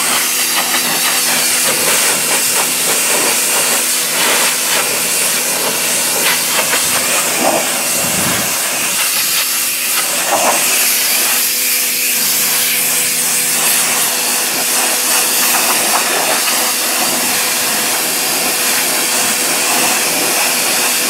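Harbor Freight Portland 1750 PSI electric pressure washer spraying a wide fan of water at close range onto a plastic propane-tank cover: a loud, steady hiss of spray with a constant hum of the motor and pump underneath.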